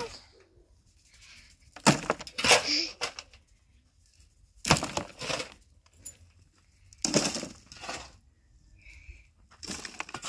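Shovelfuls of stony rubble and earth dumped into a metal wheelbarrow, each landing with a rattling crash. Three loads land, about every two and a half seconds.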